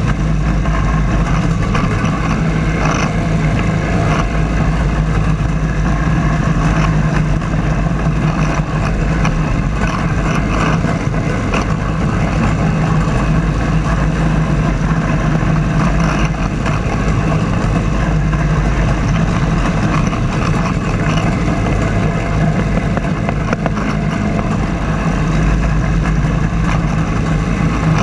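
Riding lawn mower engine running steadily while it mows, heard close up from low on the machine.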